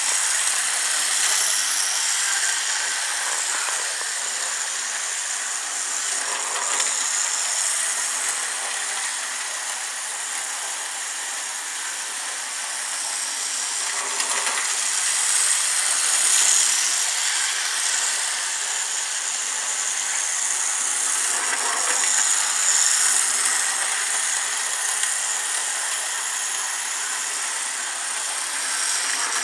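Tyco Burlington Northern model diesel locomotive running, a steady high-pitched motor whir with the wheels rattling along the track, getting a little louder about halfway through and again later.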